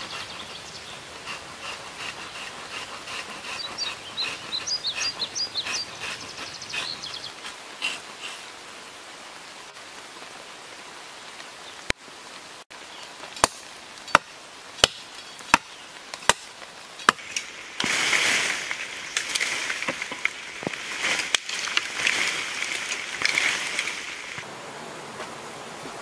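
Forest ambience with high chirping calls, then about seven sharp chops of a blade into the base of a green bamboo stalk, roughly one every two-thirds of a second. A louder stretch of rustling and crackling follows for several seconds.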